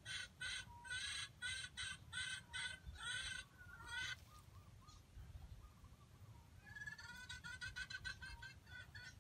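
A chicken calling in a rapid run of clucks, about three a second. It breaks off a little after three seconds, and a softer, quicker run of clucks starts near the end.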